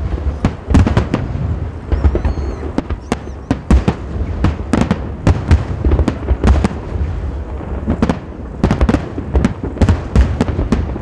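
Fireworks display: many loud aerial shell bangs in quick, uneven succession, bunching into rapid clusters, over a steady low rumble.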